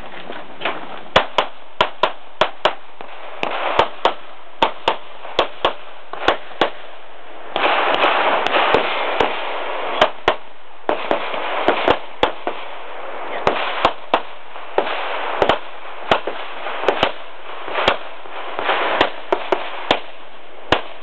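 Pistol gunshots fired rapidly in close pairs and short strings, with gaps of about a second between strings.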